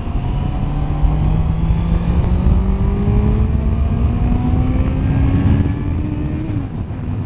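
Motorcycle engine accelerating, its note rising steadily for about six seconds, then dropping sharply near the end as the throttle is rolled off or a gear is shifted, with wind noise.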